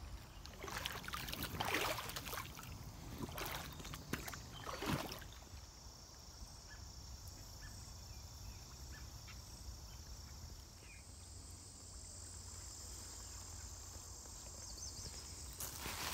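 Wading through shallow creek water: several sloshing, splashy steps in the first five seconds, then a steadier stretch of quiet outdoor background with a constant high-pitched hiss.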